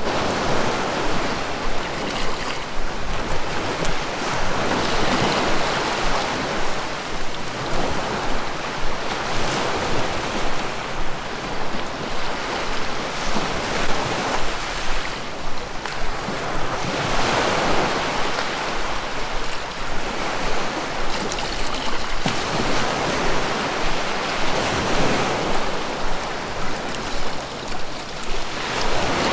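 Ocean surf: waves breaking and washing up a beach, the rush swelling and falling back every few seconds.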